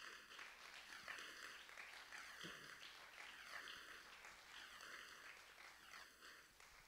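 Faint audience applause, very low in level: a soft, uneven patter of clapping.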